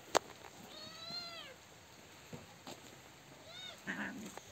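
A cat meowing: one long, level meow that falls away at its end about a second in, and a short meow near the end. A sharp click comes just after the start.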